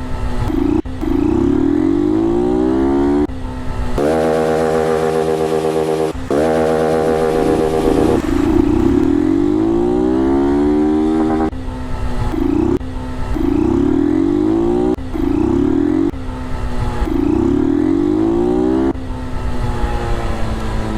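Motorcycle engines revving again and again, their pitch climbing and dropping with each blip of the throttle, at times two engines together.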